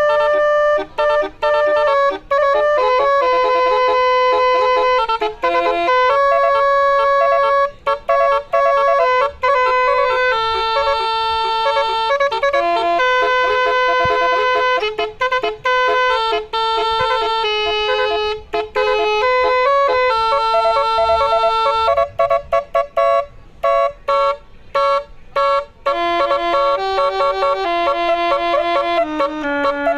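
Basuri telolet bus horn, a multi-tone horn set, playing a tune of held notes that step up and down in pitch, with a run of short choppy blasts in the second half.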